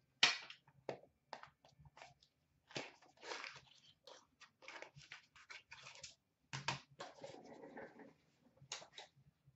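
A small cardboard box of trading cards being handled and opened by hand: a string of short, irregular scraping, crinkling and tearing noises, with a longer rustle about seven seconds in.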